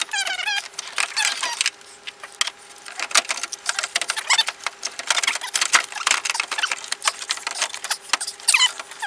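Plastic-tanked aluminium radiator being worked loose and lifted out of a car's engine bay: a steady run of clicks, rattles and scrapes of plastic and metal, with a few squeaks in the first second or so.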